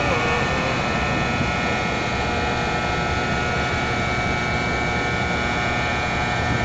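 ITX-Saemaeul electric multiple-unit train pulling out and moving away: a steady running noise with a high, even whine.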